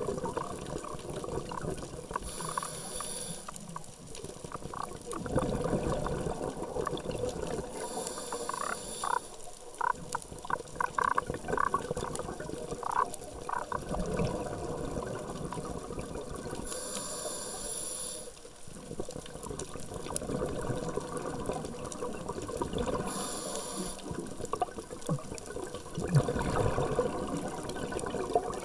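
Scuba diver breathing through a regulator underwater: four inhalation hisses, about every six to seven seconds, each followed by a gurgling rush of exhaled bubbles.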